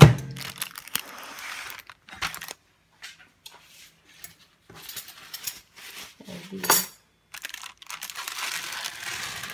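A plastic microwave-meal tray and its plate handled on a kitchen counter. A sharp knock comes right at the start, then scattered clinks and knocks, and near the end a crinkling as the plastic film lid is peeled back from the tray.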